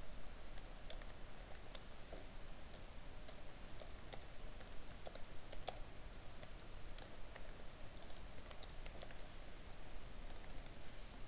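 Typing on a computer keyboard: irregular keystroke clicks in short runs with small pauses between them.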